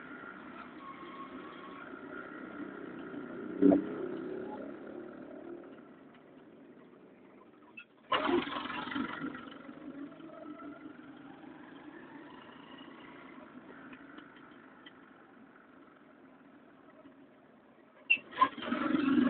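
A motor vehicle running steadily, with a sharp knock about four seconds in and louder noisy surges at about eight seconds and again near the end.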